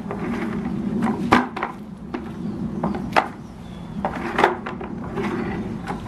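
Hollow plastic knocks and clatters, some eight sharp hits at uneven intervals, as the headless red plastic tub of a Henry vacuum cleaner is grabbed, kicked and tumbles over the grass. A steady low hum runs underneath.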